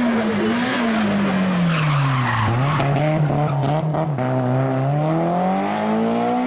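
Peugeot 306 S16 rally car's 16-valve four-cylinder engine coming off the revs into a hairpin, its pitch falling steadily, with a brief tyre screech as the car slides. About four seconds in the note breaks, then rises again as the car accelerates out of the corner.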